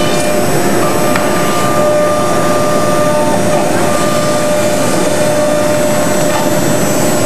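CNC router's 5 hp spindle running and cutting hard plastic sheet: a steady whine over constant, even cutting noise, with no change through the cut.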